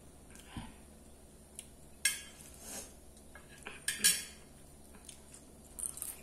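Sharp clinks of cutlery against a ceramic dinner plate, two louder ones about two and four seconds in, with a few quieter clicks between.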